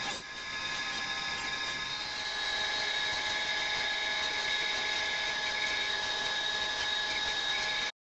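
Band saw running steadily, its motor and blade giving a continuous whine with several fixed high tones. The sound cuts off abruptly near the end.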